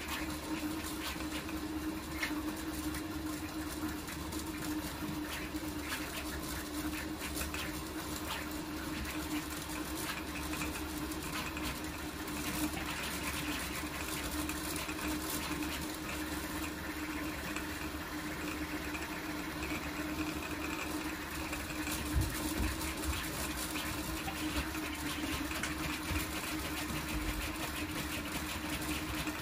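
Large toolchanger 3D printer printing at high speed: its motors buzz and chatter through rapid back-and-forth moves of the print head, over a steady hum.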